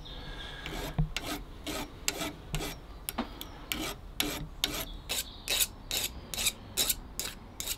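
Hand file rasping across the end of a small copper rivet in quick, even strokes, about two to three a second, rounding a small radius on the rivet's end.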